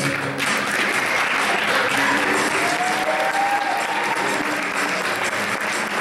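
Audience applauding, dense and steady; the closing music cuts off in the first half-second.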